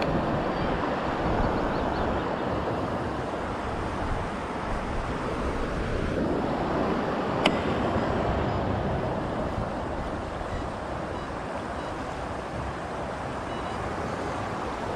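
Wind buffeting the microphone over choppy water with waves washing, steady throughout, with one sharp click about seven and a half seconds in.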